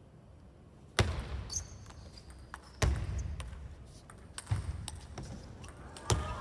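Table tennis rally in a large hall: sharp smacks of the ball off the bats and table, four loud ones about a second and a half to two seconds apart starting about a second in, each echoing, with lighter clicks and a shoe squeak on the court floor between them. Voices rise near the end.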